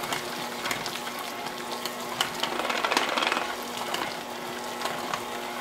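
Electric hand mixer running steadily, its beaters churning stiff chocolate buttercream that has just been loosened with a little milk. Occasional light clicks come from the beaters knocking the glass bowl.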